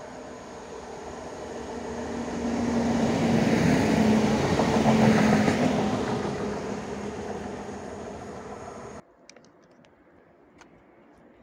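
SA137 diesel multiple unit running past as it pulls into a station, growing louder to a peak about four to five seconds in, with a steady engine hum under the running noise, then fading away. The sound cuts off abruptly about nine seconds in, leaving a much quieter background with a few faint clicks.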